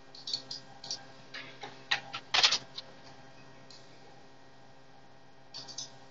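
Computer keyboard keystrokes and mouse clicks in short clusters, loudest about two and a half seconds in, then a pause and a few more keystrokes near the end, over a faint steady hum.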